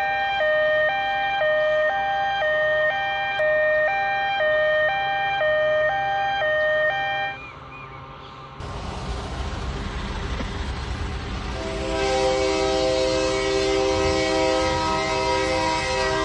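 A two-tone hi-lo siren, alternating about once a second, stops about seven seconds in. After a brief lull a steady rushing rumble begins, and about twelve seconds in a train horn starts sounding, a loud held chord of several notes.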